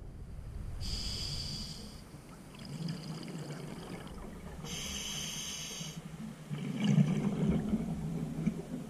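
Scuba diver breathing through a regulator, heard underwater through a camera housing: a hissing inhalation about a second in and another about five seconds in, then a louder rush of exhaled bubbles around seven seconds in.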